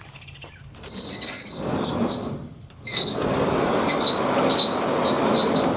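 High-pitched metallic squealing over a rushing noise, starting suddenly twice about two seconds apart; the second run breaks into a string of short squeaks, about two a second.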